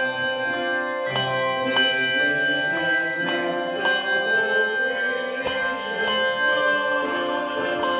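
Handbell choir playing a piece: bells struck in a steady run of notes, each ringing on and overlapping the next into sustained chords.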